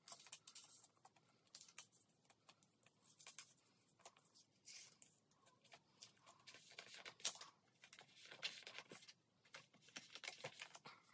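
Faint rustling and light clicks of clear plastic binder sleeves as photocards are handled and slid into their pockets, with one sharper click about seven seconds in.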